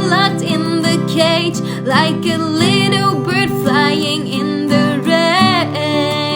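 Music: a song with acoustic guitar and a singing voice in long, wavering notes with vibrato.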